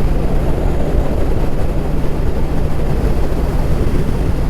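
Motorcycle running steadily at highway speed: an even engine drone mixed with wind rush on a helmet-mounted microphone.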